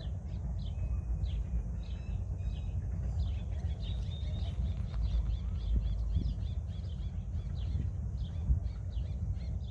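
Ladder-backed woodpeckers calling: short high notes repeated many times, several a second, over a steady low rumble.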